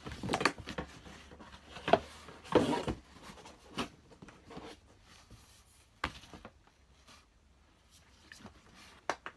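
Cardboard box and packaging being opened and handled: a few loud rustles and knocks in the first three seconds, then a handful of scattered clicks.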